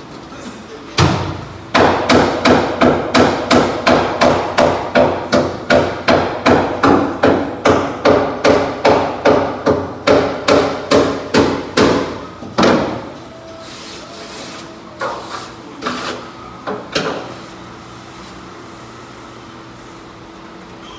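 Hand hammer striking the steel floor of a dump truck bed: one blow, then a fast steady run of about three blows a second with a metallic ring for some ten seconds, then a few lighter knocks before it stops.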